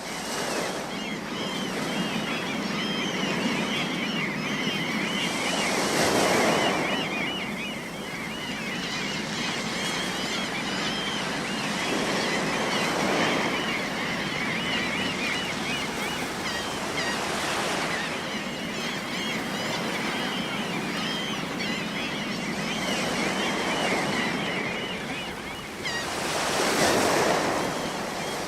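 Sea waves washing onto a shore, swelling and breaking every several seconds and loudest near the end. A steady chatter of many seagulls calls over them.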